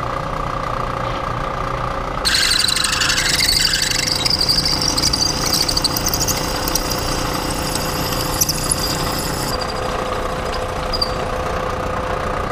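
Vertical milling machine spindle running with a steady hum. About two seconds in, a drill bit starts boring out a threaded hole in a steel conflat flange, and the cut becomes a loud, high-pitched, chattering screech until about three seconds before the end, when the spindle runs on alone. The bit is crossing the old threads, an interrupted cut that makes it jump around and chatter.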